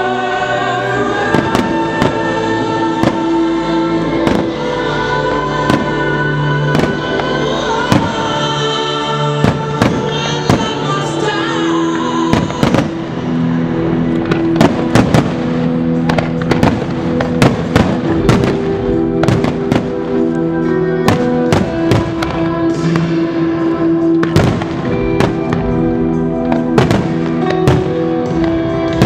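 Aerial firework shells bursting in a rapid string of sharp bangs over music with long held notes. The bangs come thicker and louder from about halfway through.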